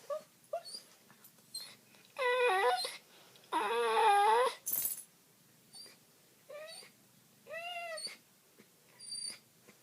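Dog whining: two long, wavering cries, then several shorter ones.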